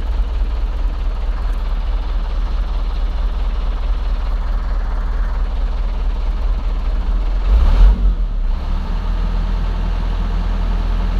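A truck engine idling with a steady low hum. About eight seconds in there is a brief, louder burst of noise.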